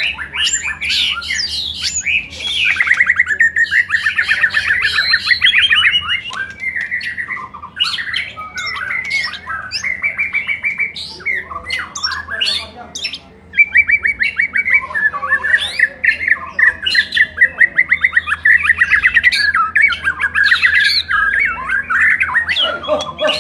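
White-rumped shama (murai batu) singing loudly and almost without a break: varied phrases mixed with long, fast runs of repeated harsh notes. It pauses once, briefly, about 13 seconds in.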